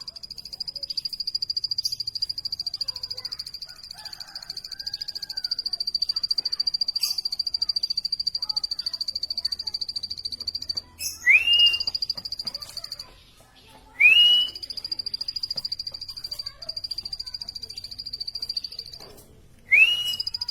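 Plain prinia singing: a long, fast, buzzing high-pitched trill that breaks off several times, cut through three times by a loud short rising whistled note.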